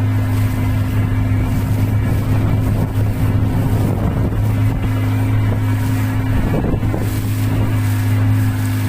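Boat engine running steadily at constant speed, a deep even drone with a higher steady tone above it, over wind and water noise.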